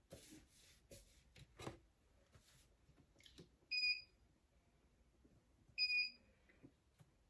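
Two short, high electronic beeps about two seconds apart, after a couple of seconds of faint handling noise and small knocks.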